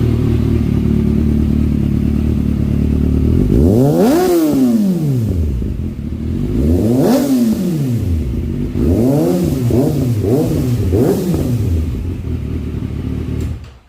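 Kawasaki ZX-6R inline-four with an Akrapovič exhaust idling, then revved: two long revs, then three quicker throttle blips, then back to idle. The sound stops suddenly near the end.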